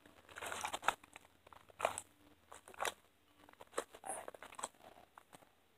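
Sticky homemade foam slime being squished and pulled between the fingers: faint, irregular crackles and squelches.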